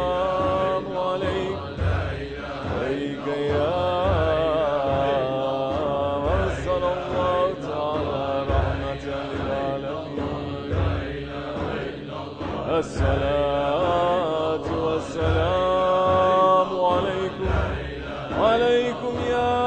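Sufi devotional chanting of salawat: a man's voice sings a slow, melodic chant in Arabic, holding and sliding between notes, over a low, roughly regular beat about once a second.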